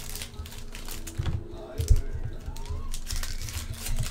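Foil hockey card pack wrapper crinkling and tearing as it is ripped open by hand, with a few dull handling knocks, the loudest about two seconds in, over a steady low hum.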